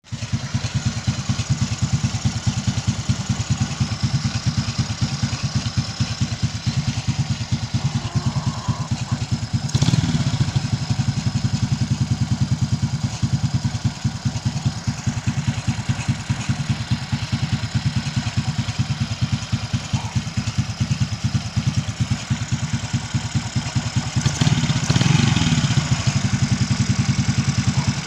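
Suzuki Raider J 115 Fi single-cylinder motorcycle engine, freshly rebored .50 oversize and still in break-in, running through its stock exhaust. It idles steadily, with a short throttle blip about ten seconds in and a longer rise and fall in revs about twenty-five seconds in.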